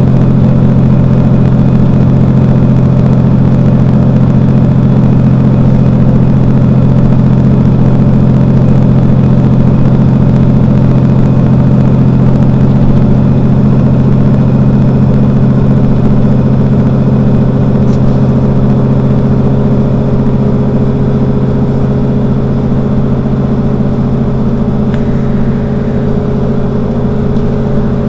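Mercedes-Benz Citaro Facelift city bus engine idling steadily while the bus stands at a stop. It is a little quieter in the last third, where a faint steady whine joins in.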